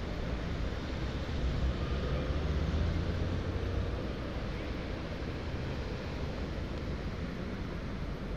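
Street traffic at a town intersection: cars driving through, a steady low rumble of engines and tyres that eases off a little in the second half.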